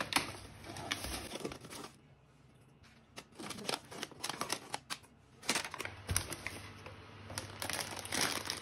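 Kraft-paper bag crinkling and rustling in the hands, with small irregular clicks and scrapes, as salt is taken out of it with a spoon; it goes quieter for about a second partway through, then the rustling picks up again.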